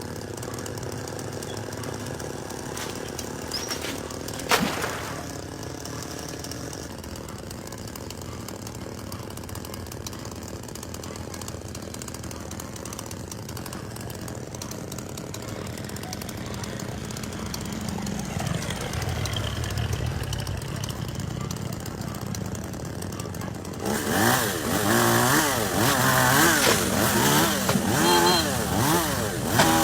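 Chainsaw engine running steadily at low speed, with one sharp knock about four and a half seconds in. About 24 seconds in it is revved hard and gets louder, its pitch swinging up and down again and again.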